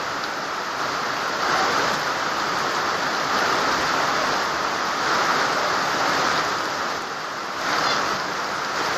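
Steady rushing water noise from the flood, gently swelling and easing, with a faint short high chirp near the end.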